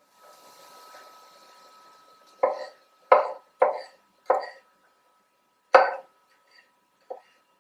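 Kitchen knife chopping on a cutting board: five sharp, unevenly spaced strokes in the middle of the stretch, then one faint tap near the end.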